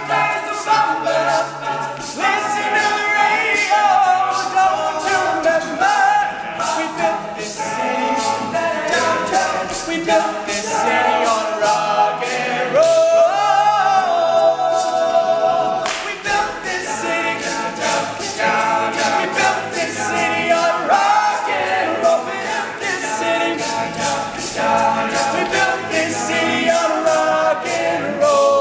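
All-male a cappella group singing in harmony, with a steady percussive beat running under the voices.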